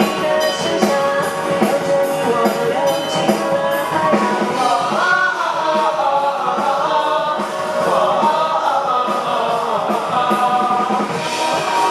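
Pop song music with several voices singing together over a steady beat.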